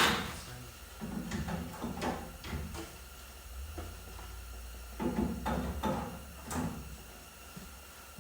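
Handling of a plastic aftermarket clear tail light assembly: a sharp knock at the start, then scattered clicks, knocks and rustles as it is moved and held up against the truck.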